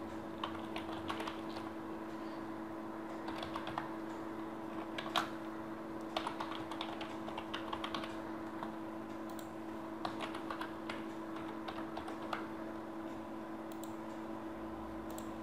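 Typing on a computer keyboard: irregular runs of keystrokes over a steady low hum.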